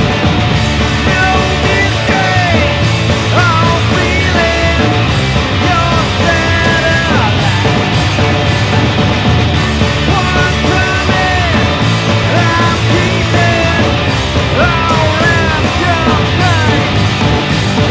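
Loud rock music: a singing voice over a full band.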